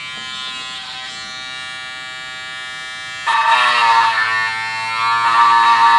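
Mini linear electric sander pen running with a steady buzz. About three seconds in it gets markedly louder and rougher and its pitch dips briefly, as the pad bears on the plastic and sands it.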